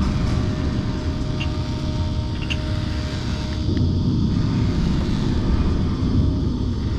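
Engine running steadily at idle, a continuous low rumble with a faint steady whine above it.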